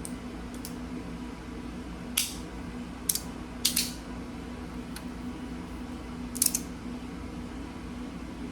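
A few short, sharp clicks from a metal fidget slider being slid back and forth on its freshly replaced slide tape, about four in all spread over several seconds.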